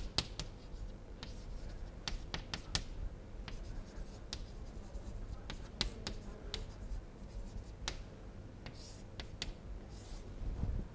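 Chalk writing on a chalkboard: irregular taps and short scratchy strokes as letters are written, with two longer scrapes near the end as the heading is underlined.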